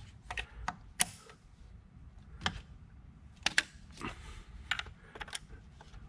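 Rubber hoses and plastic fittings being handled and moved around in an engine bay: scattered light clicks, taps and rustling, irregular and a second or so apart.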